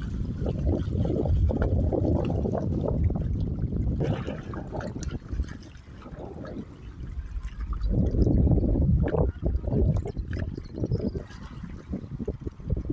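Lake water sloshing and lapping in uneven surges, easing off a few seconds in and swelling again about eight seconds in.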